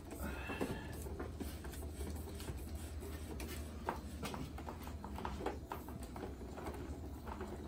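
Faint scattered taps and rustles of electrical cable being pushed into a breaker panel and pulled along the wall, over a steady low hum.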